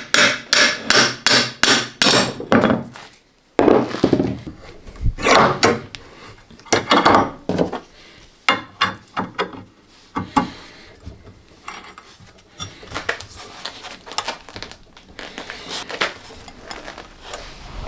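Hammer blows in quick, even succession, about three a second, stopping about two and a half seconds in; then a few heavier knocks followed by lighter, irregular taps and tool clatter.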